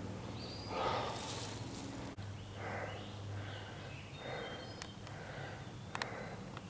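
A hiker's heavy breathing from the exertion of a steep uphill climb, with breaths about once a second. A couple of sharp clicks come near the end.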